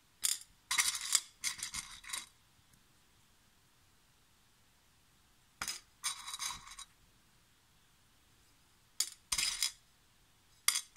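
Pieces of rough opal clinking and scraping against each other and a ceramic dish as they are sifted by hand, in four short clusters of rattling clicks.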